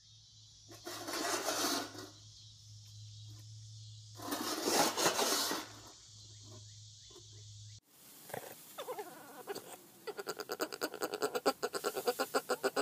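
A husky growling and grumbling over its food bowl in two noisy bursts, the second longer, over a steady low hum. Near the end, a quick run of short pitched sounds follows, about five a second.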